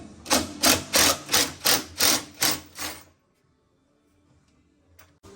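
Repeated hammer blows, about three a second for some three seconds, then they stop.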